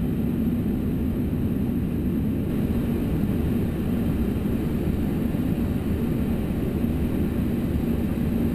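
Steady low rumble of cockpit noise in an Airbus A330-300 on final approach, with a constant hum running through it.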